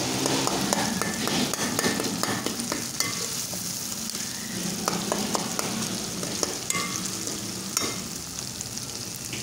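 Tomatoes, onions and garlic sizzling in hot oil in a metal karahi as the tomatoes soften. A slotted metal spatula stirs them, scraping and clicking against the pan.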